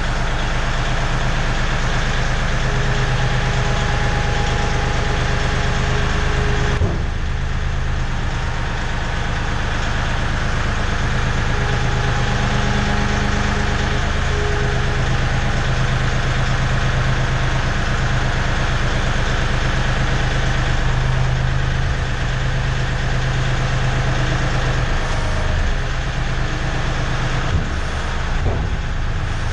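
Compact tractor's diesel engine running steadily at a low, even speed, heard from the operator's seat inside a steel shipping container.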